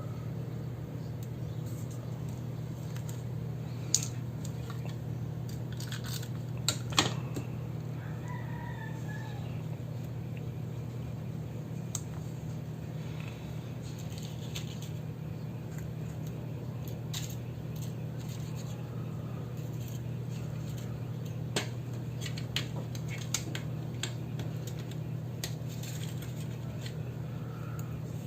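Scattered small clicks and taps of journaling supplies being handled on a desk, over a steady low hum. A brief distant bird call rises and falls about eight seconds in.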